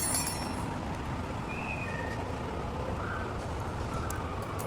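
Steady low background rumble, with a short ringing metallic clink right at the start.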